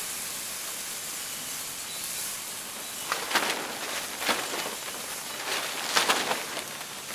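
Steady hiss and sizzle of water and dock leaves heating in a cast-iron skillet over a campfire. From about three seconds in, several short, louder bursts of sizzle and splash come as more water is poured from a plastic bottle into the hot pan.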